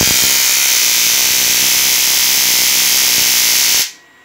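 Homemade Tesla coil driven by a stun-gun boost converter, its spark gap firing in a loud steady buzz. It cuts off suddenly near the end.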